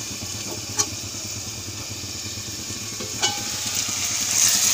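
Chopped onions, green chillies and tomatoes sizzling in oil in a kadai, the sizzle growing louder near the end as they are stirred with a metal spoon. A steel plate used as the lid clicks once and clinks with a short ring partway through.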